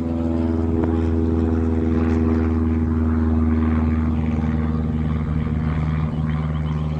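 Light aircraft's piston engine flying over from a nearby airfield, a steady loud drone with a low, even pitch that swells toward the middle of the pass.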